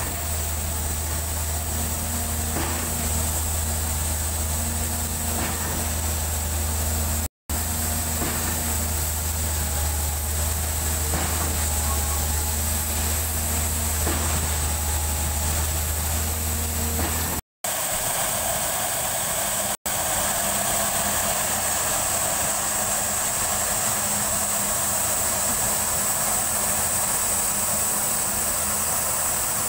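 Truck concrete pump running steadily, its engine giving a low hum with a faint knock every few seconds as the pump strokes while concrete feeds into its hopper. About halfway through, the sound cuts to a steady hiss of site noise without the engine hum.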